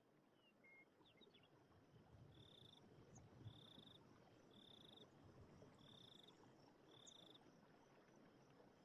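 Faint night ambience: a cricket chirping in five short trills about a second apart, with a few fainter brief chirps about a second in, over a soft steady hiss.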